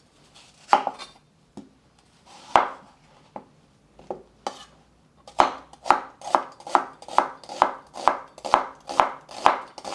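Chef's knife slicing an onion on a wooden cutting board: a few scattered cuts, then from about five seconds in a steady run of knife strikes on the board, roughly two or three a second.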